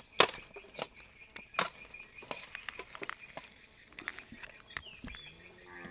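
Green plastic hand-held lime squeezer clacking as lime halves are pressed in it: a series of sharp clicks, the loudest just after the start. A steady high-pitched hum runs behind.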